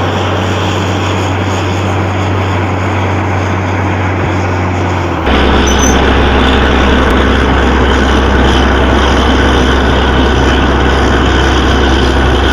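Truck-mounted borewell drilling rig running with a loud, steady mechanical drone. About five seconds in, the drone abruptly drops deeper and gets louder.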